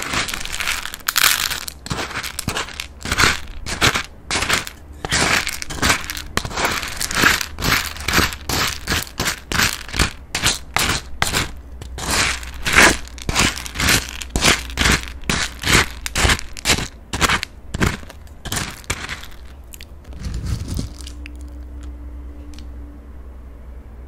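Crunchy fried corn snack being bitten and chewed, a rapid run of loud crunches about two a second that dies down to quieter chewing near the end.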